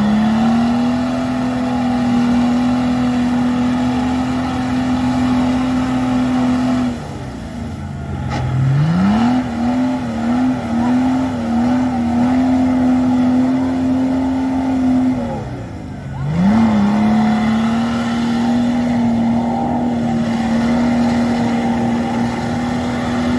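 Off-road truck's engine running hard at high revs as it pushes through deep mud and water. The revs hold steady, drop away twice and climb straight back, and wobble up and down for a few seconds in the middle.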